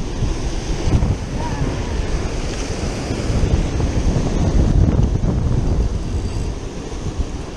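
Surf breaking and washing over rocky shoreline, mixed with heavy wind buffeting the microphone as a steady, rough low rumble.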